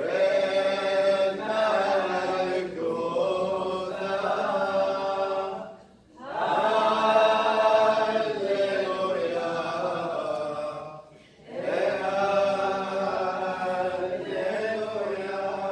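Liturgical chant of the Assyrian Church of the East, sung in three long phrases with short breaks about six and eleven seconds in.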